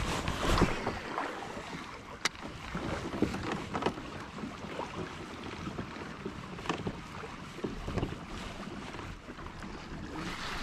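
Kayak moving through choppy lake water: water splashing and lapping against the hull, with wind buffeting the microphone. A few short knocks come and go, as from gear or the camera mount being handled.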